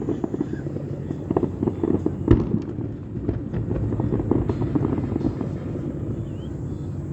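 Aerial fireworks exploding: a rapid crackle of many small bursts, with one heavy bang a little over two seconds in.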